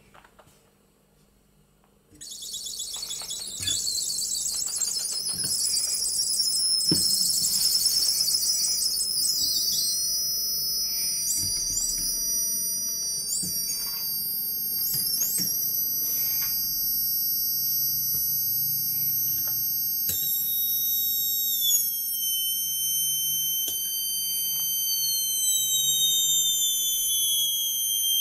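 High-pitched electronic whine from several Bedini self-oscillating fan-motor circuits switched on one after another: several pure tones start about two seconds in, glide up and down in pitch as the rotors spin up, then hold steady, with a few tones sliding down in pitch near the end. Light switch clicks are heard now and then.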